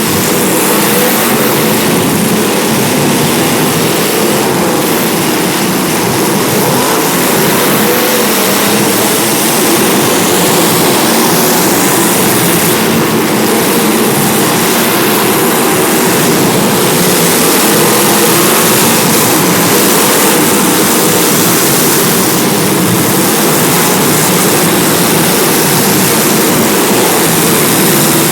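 Demolition derby cars' engines running together in the arena, a loud, continuous din of many engines at once.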